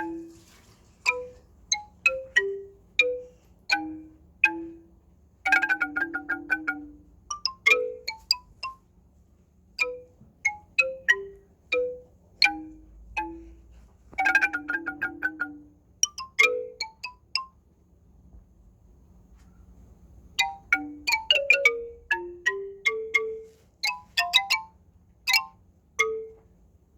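Bell-like melody of short struck notes that decay quickly, played one by one with small pauses. Three times it breaks into quick runs of strikes, and it goes quiet for a couple of seconds about two-thirds of the way through.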